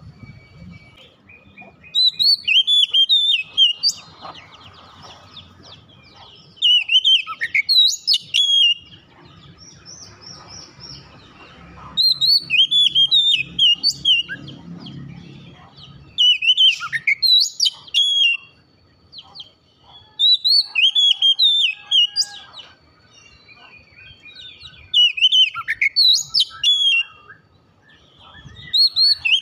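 Oriental magpie-robin singing in full voice: short loud phrases of quick, rising-and-falling whistles and chatter, each about two seconds long, repeated about six times with pauses of two to three seconds between.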